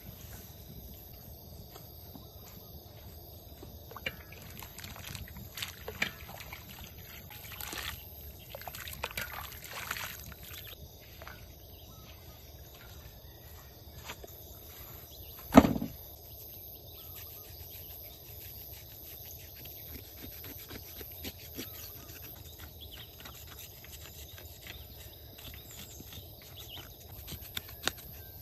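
Water sloshing and splashing in a large metal wok as a cow's head is rubbed and turned in hot water, busiest in the first third, with one loud knock about halfway through.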